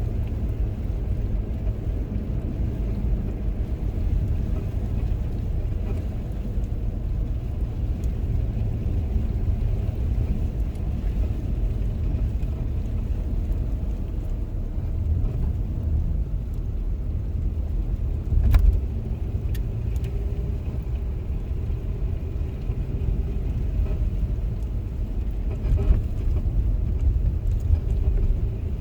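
Steady low rumble of a car's tyres and engine heard from inside the cabin while driving slowly, with one sharp click about eighteen seconds in.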